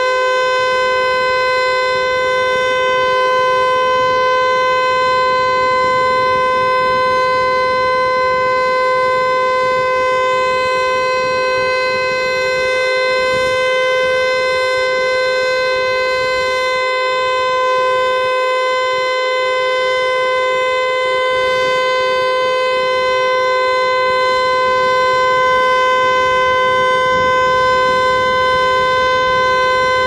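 Federal Signal Eclipse 8 outdoor warning siren sounding its full alert: one loud, steady tone held without rising or falling.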